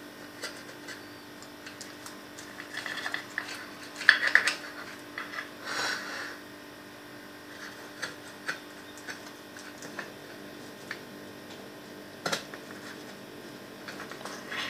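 A knife cutting a no-bake cheesecake and serving a slice, with short scrapes and scattered light clicks of the knife and slice against a plate or tray, over a faint steady hum.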